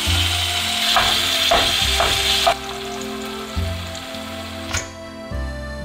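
Sliced tomatoes sizzling in hot oil in a frying pan, with a few sharp pops, the sizzle cutting off suddenly about two and a half seconds in. Soft background music underneath.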